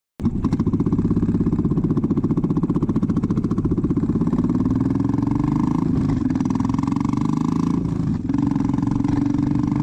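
Royal Enfield Bullet single-cylinder motorcycle engine running, a rapid, even thumping with a brief dip about eight seconds in.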